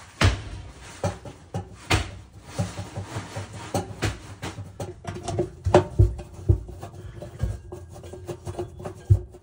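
Phillips screwdriver working the bracket and mounting-plate screws of a new electric oven bake element: the steel tip clicks, knocks and scrapes against the sheet-metal oven cavity in an irregular run of sharp clicks.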